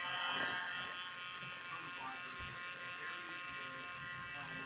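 A toy train's small electric motor running, a steady high buzzing whine.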